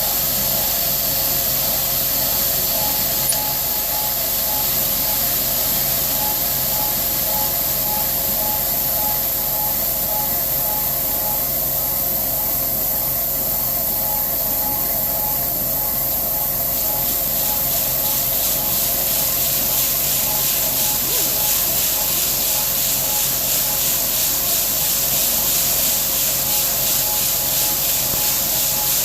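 Grain-handling machinery running steadily as corn is unloaded from a wagon into the bin pit: a constant mechanical whine under a hiss that grows stronger a little over halfway through.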